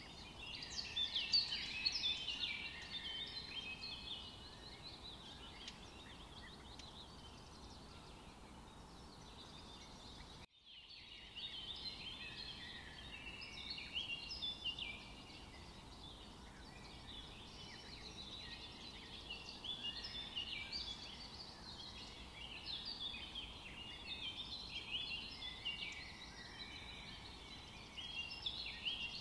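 Many small birds chirping in a dense, continuous chatter of short high calls, with a brief drop to silence about ten seconds in.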